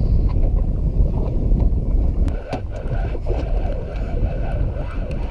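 Wind buffeting a hat-mounted camera microphone on a boat at sea, a steady heavy rumble. In the second half come a few sharp clicks and the faint whirr of a spinning reel being cranked.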